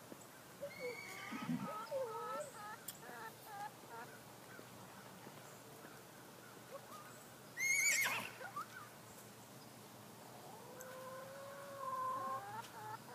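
A horse whinnying: one loud, quavering call about eight seconds in, then a longer, lower call near the end. Scattered short bird chirps in the first few seconds.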